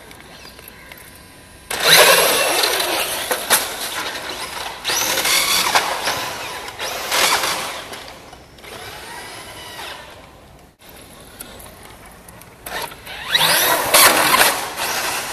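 Thunder Tiger MT4 G3 electric RC monster truck running on a 4S LiPo and accelerating hard, its motor whine rising and falling in pitch over tyre noise. It starts suddenly about two seconds in, eases off around ten seconds, and comes back in a second loud burst near the end as the truck tumbles.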